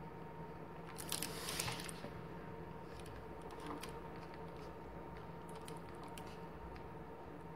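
Soft rustling and light ticks of thick cotton macramé cord being handled and pulled through a square knot, with a louder brushing rustle between about one and two seconds in. A faint steady hum sits underneath.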